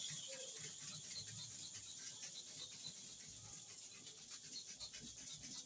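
Clipper blade being rubbed back and forth on an oiled sharpening stone, a faint, even scraping in quick repeated strokes as the blade is ground.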